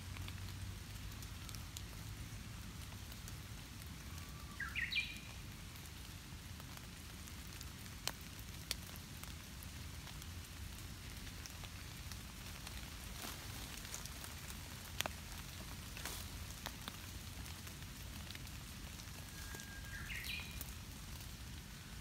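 Steady rain pattering on leaves and wet ground, with scattered sharp drip ticks. Twice, about four seconds in and again near the end, a bird gives a short chirp that rises in steps.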